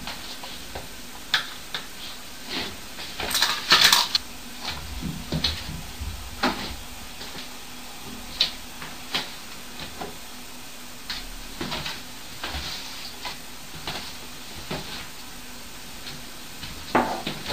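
Irregular light clicks and knocks in a flat, with a louder burst of rattling clatter about three to four seconds in and another near the end, over a steady low hum.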